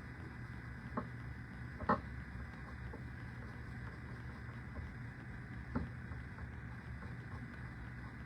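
Steady low room hum with three short, light knocks, about one, two and six seconds in, the second the loudest.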